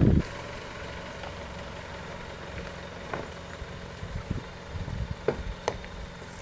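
Isuzu pickup truck's engine running low and steady as the truck crawls along a rough bush track, with a few sharp clicks. A loud low rumble cuts off just after the start.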